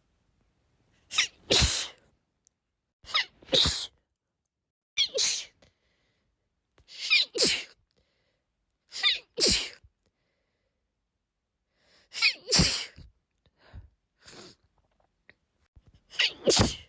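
A woman's sneezing fit: about seven loud sneezes in a row, roughly two seconds apart, each a quick two-part "ah-choo".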